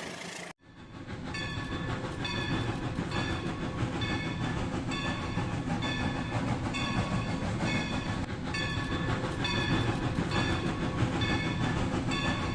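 Rail King toy train running on its track: a steady motor-and-wheel rumble with a short electronic tone repeating about twice a second. The sound starts after a brief cut about half a second in.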